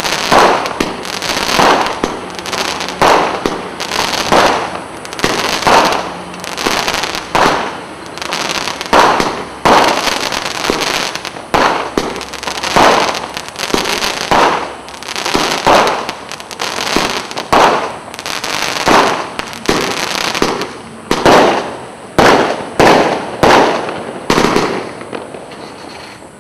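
Astra 'Deadly Scorpions' 50-shot firework cake firing steadily, about one shot a second, each bursting into crackling stars. The shots fade near the end.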